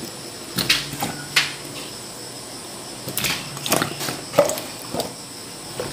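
Pieces of winter melon being dropped into a wok of water just coming to the boil. About eight short splashes and knocks come at uneven intervals over a faint steady background.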